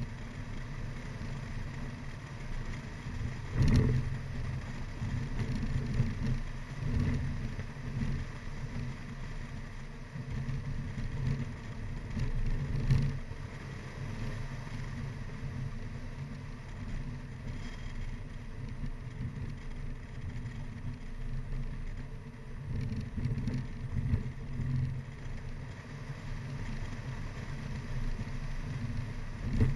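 Mini Cooper Clubman (R55) driving briskly up a narrow mountain road: the engine runs under load with steady road and wind noise. There are a few louder thumps, the biggest about four seconds and thirteen seconds in.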